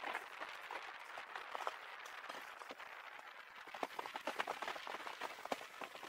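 Bicycle rolling along a road: a steady hiss of tyres and moving air with many small irregular clicks and rattles, busier about two-thirds of the way through.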